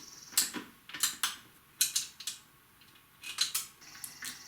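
Irregular light clicks and taps of small parts and hand tools being handled while working on a motorcycle, about a dozen sharp knocks at uneven spacing.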